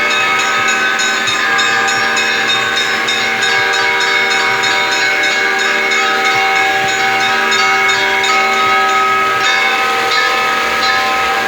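Church bells ringing a peal: several bells struck again and again, their tones overlapping and sustaining into one continuous, dense ring.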